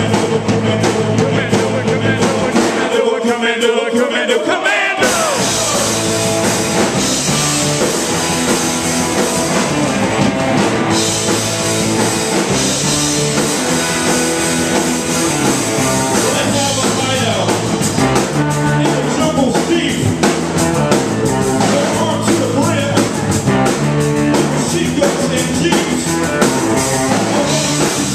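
A rock band playing live, with electric guitars, bass, a drum kit and sung vocals. About three seconds in, the drums and bass drop out for about two seconds before the full band comes back in.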